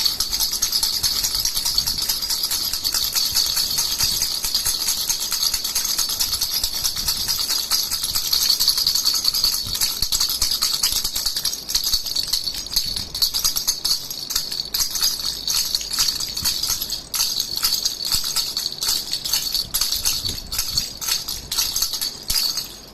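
Jhunjhuna baby rattle shaken continuously, a dense jingling rattle; from about halfway through the shakes come as more separate strokes.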